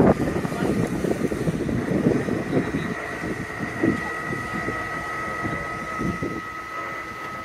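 Diesel Land Rover Discovery burning, a rough crackling rumble under wind buffeting the microphone. A steady high-pitched tone comes in about two seconds in, and a second, lower tone joins it about four seconds in.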